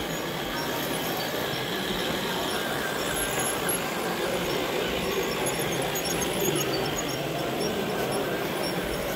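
Electric model trains running on a layout's track: a steady running noise with small high squeaks from wheels on rails.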